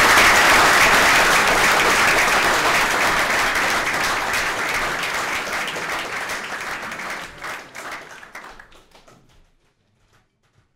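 Audience applauding, loud at first and dying away over the last few seconds.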